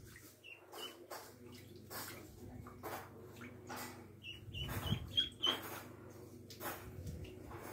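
Ducklings peeping: a couple of short high peeps near the start and a quick run of about five peeps about halfway through, with soft splashes and scuffs in shallow bathtub water.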